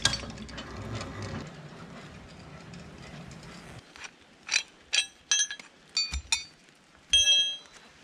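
A steel snatch block and its strap hardware clinking as they are handled, a run of sharp metallic clinks in the second half, the last one ringing briefly. Before that, a low steady rumble that stops abruptly about four seconds in.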